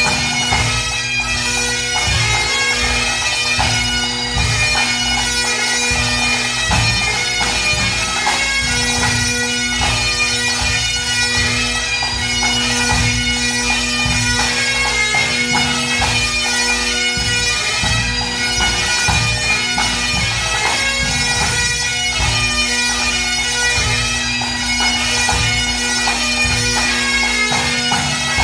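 Pipe band playing its march, strathspey and reel set: Great Highland bagpipes over their steady drones, with the band's drums beating time.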